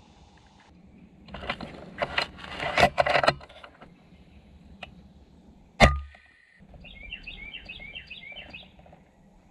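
A single sharp report from an FX Impact .30 PCP air rifle about six seconds in, the loudest sound here, with a short low thud after it. Before it come a few seconds of scratchy rustling and clicking, and near the end a bird chirps a quick run of notes.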